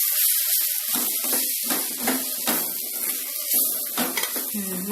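Thoothuvalai leaves sizzling as they fry in oil in a pan, with a ladle scraping and clicking against the pan a few times as they are stirred.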